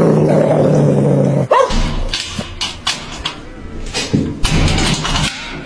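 A dog growling steadily, which stops about a second and a half in. It is followed by a short rising squeal and then a run of sharp metallic clicks and rattles as a metal gate latch on a chain-link fence is worked.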